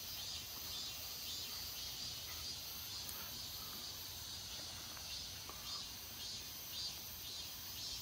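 Cicadas buzzing in a steady high-pitched chorus that pulses slightly.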